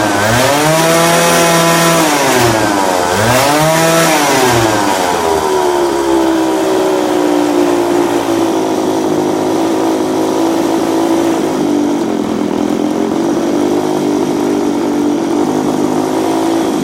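Small 49cc go-kart engine revved up and back down twice, then held at a steady fast run.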